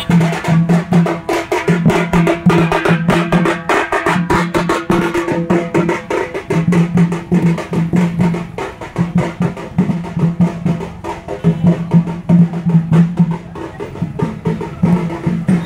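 Music with fast, dense drumming and a low melody that repeats in short phrases.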